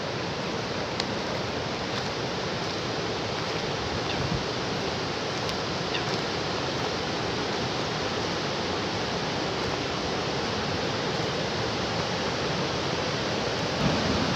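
Water pouring over a large River Thames weir: a steady rushing noise that is very, very noisy.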